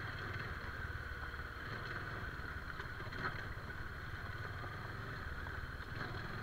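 Motorcycle engine running steadily at a slow riding pace over a rocky dirt track.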